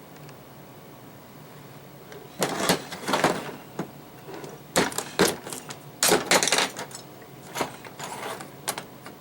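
Clusters of clicking and clattering from small hard objects being handled on a workbench, in several bursts from about two seconds in until near the end.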